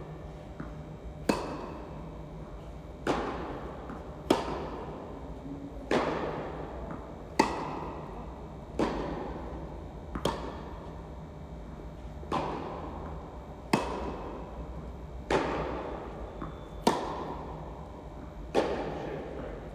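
Tennis ball being struck by rackets in a steady baseline rally, about a dozen sharp pops roughly every second and a half. Each hit rings on in the echo of the indoor court hall.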